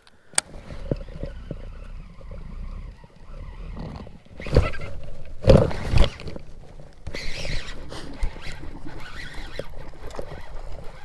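Close handling noises of fishing tackle aboard a kayak: several loud knocks a little past the middle and a brief rustle after them, over a steady low rumble.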